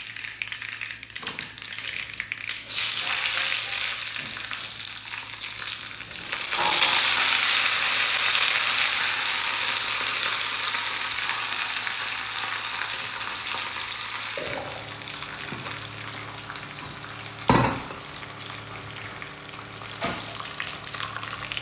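Mustard seeds sizzling and spluttering in hot coconut oil in a small tempering pan. About six seconds in, the sizzle jumps louder as curry leaves and dried red chillies go into the oil, then slowly dies down. A single metal clank comes about three-quarters of the way through.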